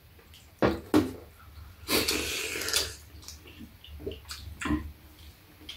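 Eating sounds: metal spoons knock sharply against bowls twice, then a loud slurp of soup lasting about a second, with a few more soft clinks and sips after it.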